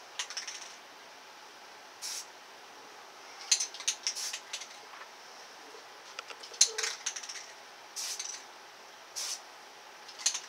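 Aerosol spray paint can hissing in a few short spurts, each well under half a second, with two clusters of quick light clicks and rattles in between.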